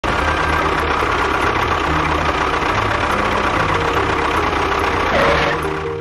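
Tractor engine running steadily, with a brief falling whine near the end as it dies away.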